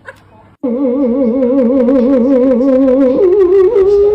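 A dog's long, wavering, song-like howl. It starts suddenly about half a second in, holds one pitch with a steady warble, then drops lower about three seconds in.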